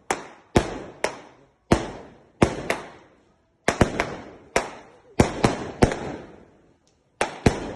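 Aerial fireworks bursting: sharp bangs at irregular intervals, often two or three close together, each followed by a rolling echo that dies away over about a second.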